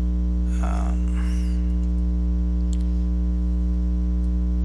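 Steady, loud electrical mains hum with its overtones, picked up on the recording line, with a faint brief noise about a second in.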